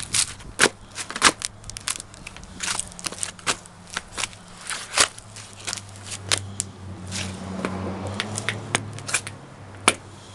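Cardboard postal box crunching and crackling as it is stomped flat under Allen Edmonds McAllister wingtip shoes, in irregular sharp crackles with a few loud snaps.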